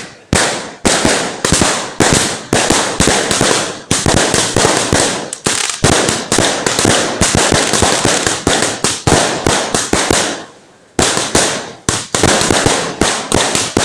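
Fireworks going off in a rapid, continuous string of loud cracks, several a second, with a brief lull about ten seconds in.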